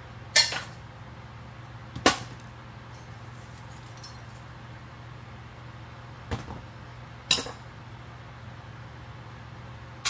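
Scrap metal parts being handled and set down, giving four sharp clanks: one just after the start, one about two seconds in, and two more about a second apart near six and seven seconds in. A steady low hum runs underneath.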